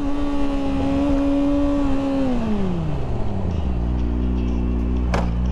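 2012 Yamaha R6's inline-four engine held at high revs, then the revs fall away over a second or so as the bike slows, settling into a steady idle about halfway through. A single sharp click near the end.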